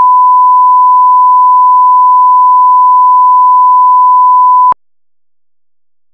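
Loud, steady line-up test tone played with colour bars: a single pure pitch held without change, cutting off suddenly after about five seconds.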